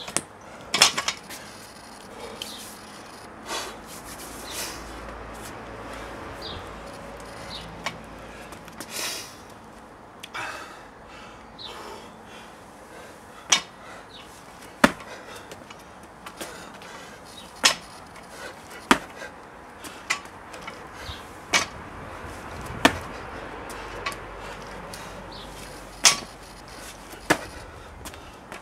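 Loaded barbell clanking during repeated snatches: sharp knocks of the bar and plates, coming every one to two seconds from about halfway on, with hard breathing between lifts.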